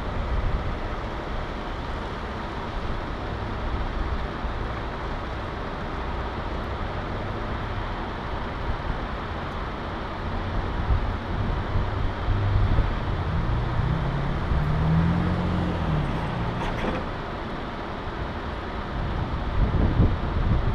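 A car driving slowly, a steady low engine and road hum. About two-thirds of the way through an engine tone rises and falls briefly, followed by a short sharp click.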